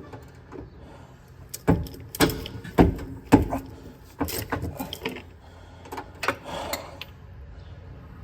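Metal hand tools clanking and knocking irregularly against a suspension bolt that will not tighten, with several sharp metallic knocks from about two to seven seconds in.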